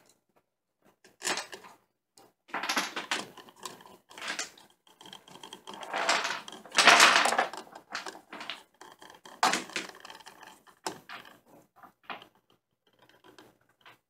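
Hand screwdriver turning the mounting screws through the metal strap of a motion-sensor light switch into the electrical box: irregular scraping and clicking, loudest about seven seconds in.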